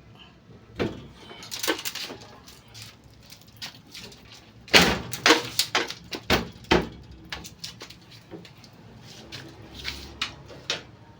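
Sharp knocks and clacks of hard objects being handled, scattered at first, then a quick run of loud strikes about five seconds in that lasts roughly two seconds.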